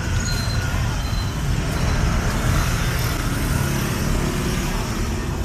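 Steady road-traffic noise from a busy city street: a continuous low rumble of passing vehicles.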